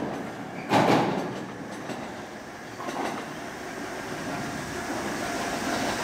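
JR Kyushu 787 series electric train's last car rolling across a steel girder bridge, with one loud wheel clack about a second in; the rumble then fades as the train moves away.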